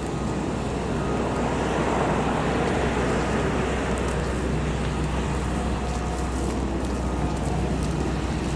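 Road traffic noise: vehicles passing on a nearby road, one swelling past about two seconds in, over a steady low engine rumble.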